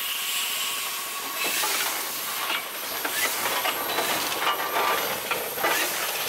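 8-ton Buffalo-Springfield steam roller under way, its steam engine hissing steadily with a few irregular knocks and clanks.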